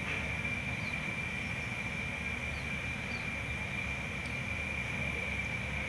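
Steady background noise: a constant high-pitched whine over a low rumble, with a few faint high chirps.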